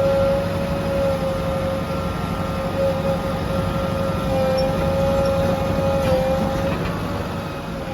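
JCB 3DX backhoe loader's diesel engine running under load, with a steady high whine over the low rumble that wavers slightly in pitch and eases briefly near the end.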